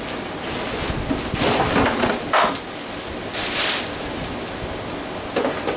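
Rustling and scraping of packaging (plastic bag and cardboard) as a backpack vacuum unit is pulled out of its box, in a few short bursts.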